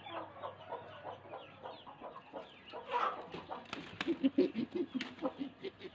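Chickens clucking softly, in short repeated pulses, with a few faint scattered knocks.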